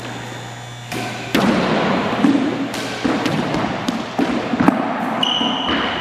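A squash ball's sharp knocks as it is struck by rackets and hits the walls and floor of the court, about eight in irregular succession, echoing off the hard walls. A brief high squeak comes about five seconds in.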